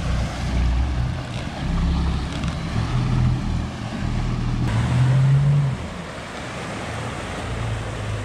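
Lobster boat engine running as the boat motors along the wharf, with its wake churning the water. The engine note shifts a little about halfway through.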